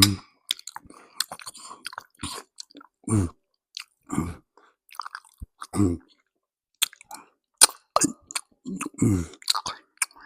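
Close-miked chewing of pasta, with mouth clicks, in short bouts with pauses between.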